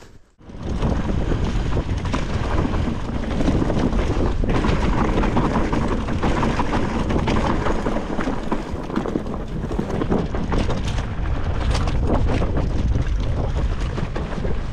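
Titanium hardtail mountain bike riding a dirt forest trail: steady wind rush over the action camera's microphone mixed with tyre rumble and the clatter and knocks of the bike over stones and roots. The sound drops out briefly right at the start, then runs loud and unbroken.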